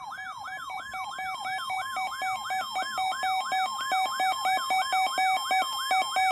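Two weather alert radios going off together for a special marine warning. One repeats a falling siren sweep about four times a second, layered over a steady alert tone and fast pulsing beeps; the steady tone and beeps cut off suddenly near the end.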